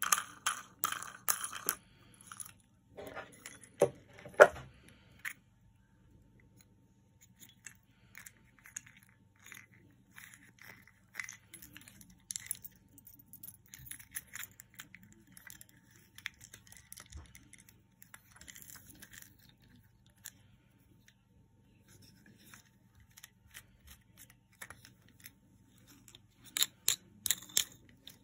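Small plastic and wooden toy parts of a busy board being handled and turned, giving scattered clicks, knocks and light rustling, with a few louder knocks about four seconds in and a quick run of sharp clicks near the end.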